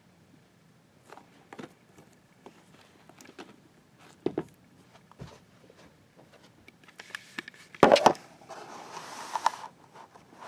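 Handling noise from a shrink-wrapped plastic DVD case being moved and set down: scattered light taps and clicks, a louder knock near eight seconds, then a brief rustle.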